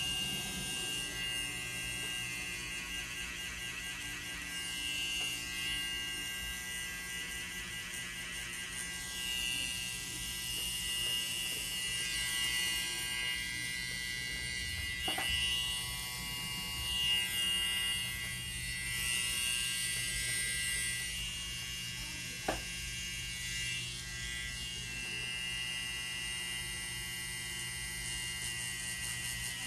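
Pen-style tattoo machine running steadily as it works ink into skin, with two short sharp clicks partway through.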